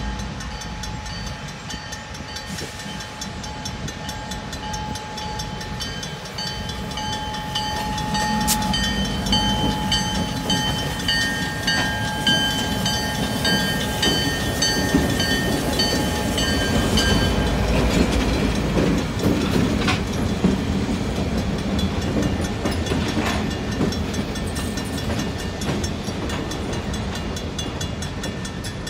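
A flat-sounding Griswold mechanical crossing bell rings in a quick even beat while CN diesel locomotives, a GP9RM and a GP38-2, approach and rumble across the crossing. The engine rumble builds through the first half and is loudest just past the middle, when the bell drops out. After that the freight cars roll over the crossing with a steady clickety-clack.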